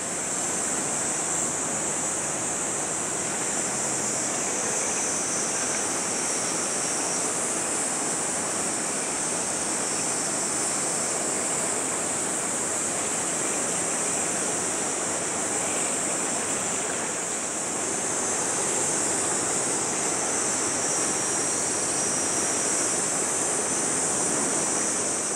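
Steady waterfront ambience: wind and water noise, with a constant high-pitched hiss over it.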